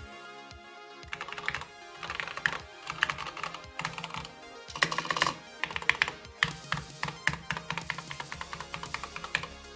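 Mechboard mechanical keyboard with Cherry MX Yellow switches being typed on: a fast, irregular run of key clacks starting about a second in, over background music.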